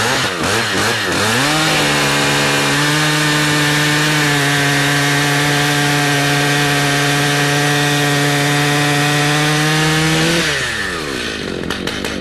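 Small engine revving up about a second in, held at a steady high speed for about nine seconds, then let back down to a lower speed near the end.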